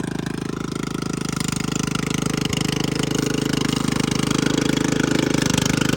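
Remote-control brush mower's engine running steadily with a rapid, even chugging pulse as it goes back to mowing, getting a little louder about halfway through.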